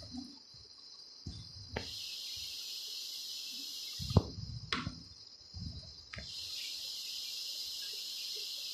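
Mash dal sizzling in oil and the last of its water in a metal pan: a steady high sizzling hiss that stops and starts. A wooden spatula stirs it, with a few scrapes and knocks against the pan, the loudest about four seconds in.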